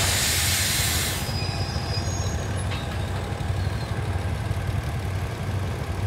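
GEK-class diesel-electric locomotive idling with a steady low rumble while the train stands at a halt. A loud hiss of released air cuts off suddenly about a second in.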